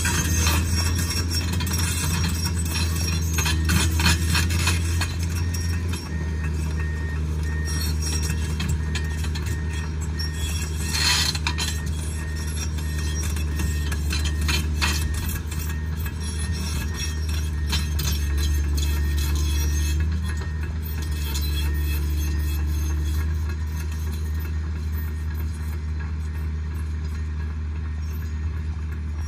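Komatsu PC210 hydraulic excavator's diesel engine running steadily as the machine travels on its steel crawler tracks, with clinking and clanking from the track links, heaviest in the first few seconds and again about eleven seconds in.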